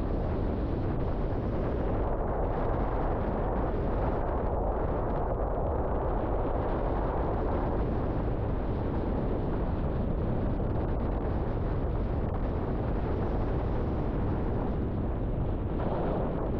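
River water rushing: a steady, even noise that holds at the same level throughout.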